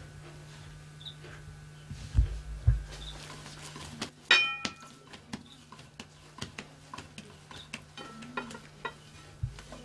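Dough being kneaded by hand in a shallow metal tray: two heavy thumps a little after two seconds, a string of small knocks, and one ringing metallic clang from the tray about four seconds in.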